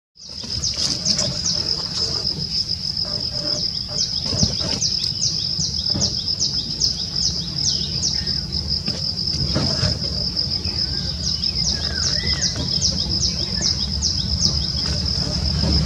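Natural ambience: an insect trills on one steady high note while a bird repeats a short, high, downward-sliding chirp about two to three times a second, over a low background rumble.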